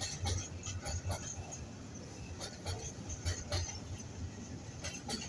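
Freight train's container flat wagons rolling past, a low rumble with repeated sharp knocks from the wheels on the rails.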